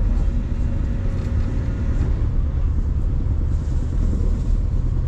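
Steady low rumble of a ferry under way, its engines running with a faint steady hum above the drone.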